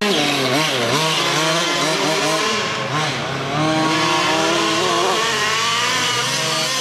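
Small two-stroke engine of a Losi radio-controlled off-road truck, revving up and down as the truck drives, its pitch rising and falling again and again.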